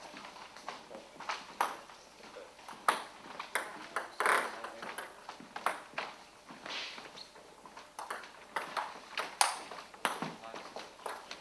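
Table tennis rally: the ball clicking sharply off bats and table in a quick, irregular back-and-forth.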